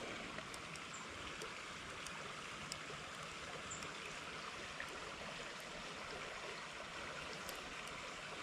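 Creek water running steadily, a soft even rush, with a few faint clicks scattered through it.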